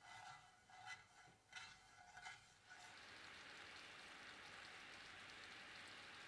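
A spatula scraping through granulated sugar and syrup in a nonstick frying pan: four short strokes with a faint squeak. About three seconds in it gives way to a steady faint sizzle as the sugar melts and bubbles in the hot pan.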